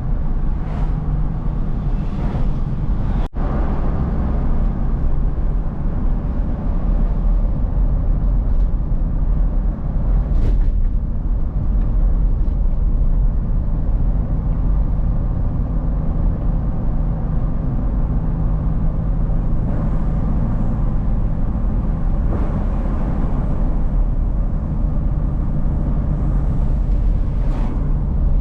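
A car driving on a road: a steady, low rumble of engine and road noise, with a brief dropout about three seconds in.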